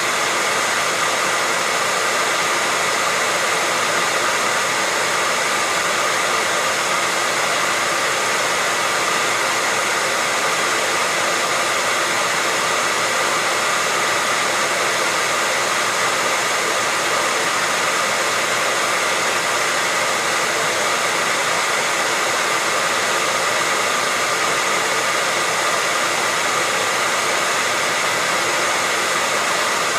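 Handheld hair dryer running steadily: a continuous airy rush from the fan and blowing air with a faint steady whine, without any change in speed.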